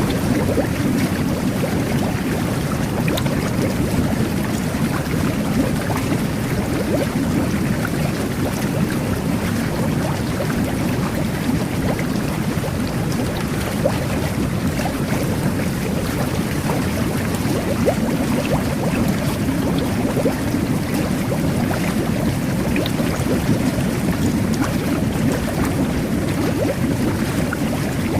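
Jet bath churning the water with continuous bubbling and gurgling: a steady low rumble with fine crackling bubbles throughout.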